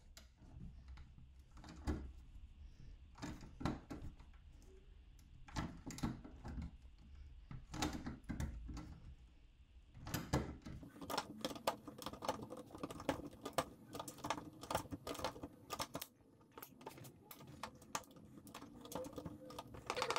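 Draper Expert hand nibbler biting through a titanium scooter handlebar: a sharp metallic click with each squeeze of the handles as it punches out the slot. The clicks come about a second apart at first, then fast and close together from about halfway.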